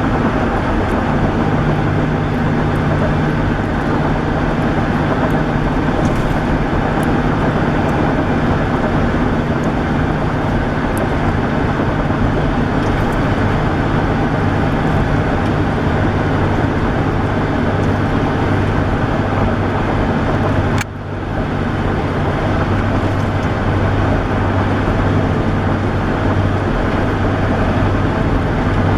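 Steady road and engine drone of a car being driven. About two-thirds of the way through there is a brief dip, after which the low hum settles lower in pitch.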